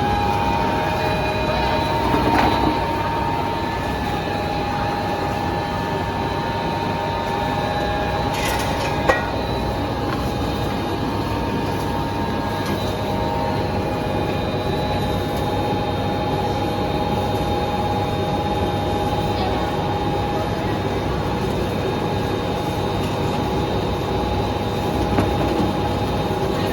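Factory machinery running steadily: a constant mechanical hum with several steady whining tones over it, and one sharp click about nine seconds in.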